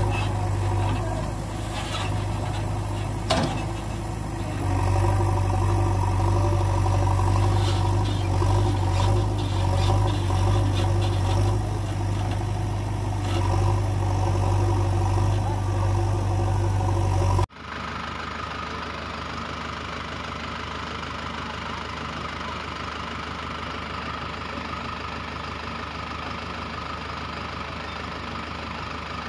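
Engine idling sound: a steady, pulsing low hum with scattered clicks and knocks. About seventeen seconds in it cuts off abruptly to a different, quieter, steady engine drone.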